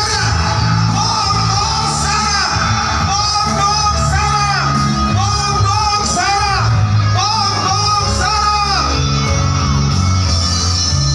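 Loud music with singing over a steady, heavy bass; the melody moves in short phrases that rise and fall.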